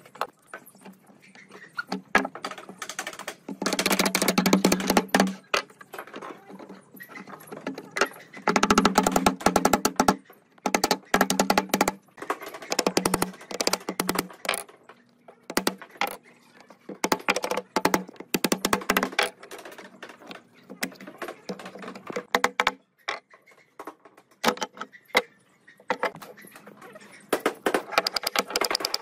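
Wooden mallet knocking notched pine strips together into a lattice: bursts of rapid, ringing wood-on-wood knocks with short pauses between.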